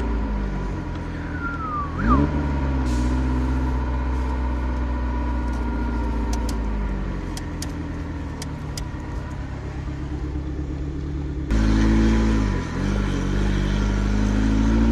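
Ferrari Mondial 3.2's V8 with a custom exhaust, heard from inside the cabin while driving. The engine note rises and falls with throttle and gear changes: a quick rev about two seconds in, a long easing-off through the middle, and a short dip and pick-up near the end.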